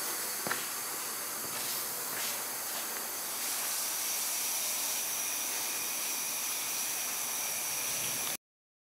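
Steady hiss of background noise, with a single faint click about half a second in and a faint high-pitched whine joining it a few seconds later; it cuts off abruptly near the end.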